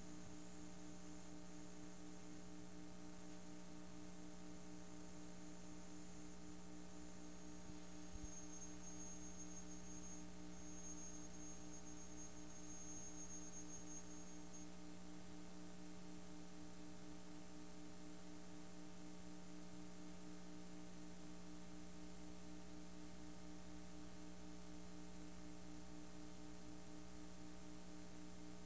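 Steady, faint electrical mains hum with a light hiss underneath, from a VHS tape transfer playing a blank stretch.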